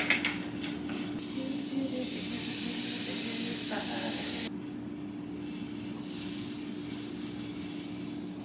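Hiss while cooking pancakes: a strong, bright hiss for about three seconds that cuts off abruptly, then a fainter hiss, over a steady low hum.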